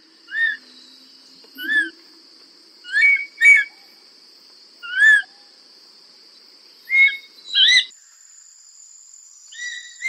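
Moluccan goshawk calling: seven short, high notes, each rising then falling, given singly and in close pairs at uneven gaps, over a steady high-pitched background hiss.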